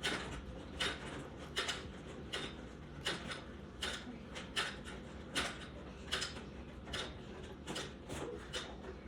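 Arm-exercise machine being worked through repetitions, giving an even mechanical stroke about every 0.8 seconds.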